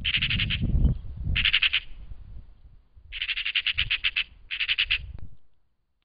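Eurasian magpie chattering: four rattling bursts of fast, rapid-fire notes, the longest about three seconds in. It is the harsh scolding chatter magpies give at a buzzard feeding on a carcass. The sound cuts off abruptly near the end.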